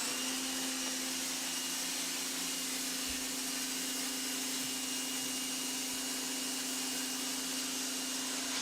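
Homdox 1800 W electric pressure washer running steadily, a motor hum under the hiss of the water spray on concrete.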